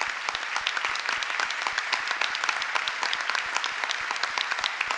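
Large audience applauding steadily: a dense patter of many hands clapping.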